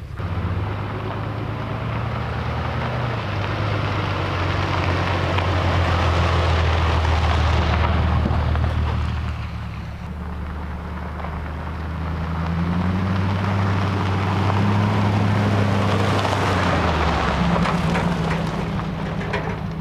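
Vehicle driving: a low engine hum under steady road and tyre noise, the engine note dropping and rising a few times as it changes speed.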